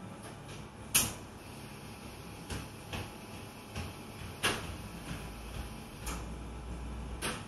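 Cafe background sound: a steady low hum of the room with a string of sharp knocks and clatters. The loudest comes about a second in, another strong one at about four and a half seconds, and one near the end, with a low rumble swelling briefly shortly before it.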